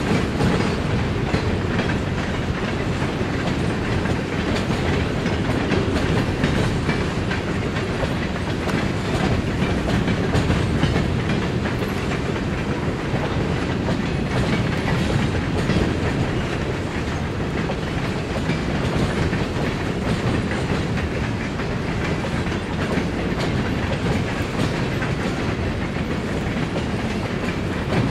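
Freight train of boxcars rolling steadily past, its wheels clicking over the rail joints.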